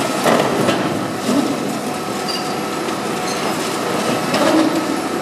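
High-reach demolition excavator breaking up a concrete multistorey car park: steady clatter and grinding of machinery and falling debris, with louder crunches about a third of a second in and again near the end.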